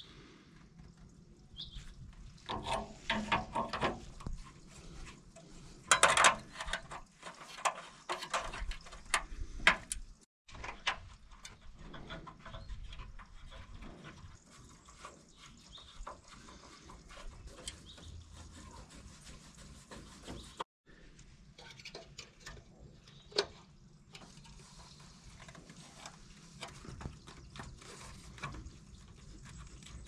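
Intermittent clicks, knocks and scrapes of hand work on a tractor headlamp. A new lamp unit is being seated in the front grille, and its plastic beam adjusters are turned with a screwdriver and by hand, with a few sharper knocks along the way.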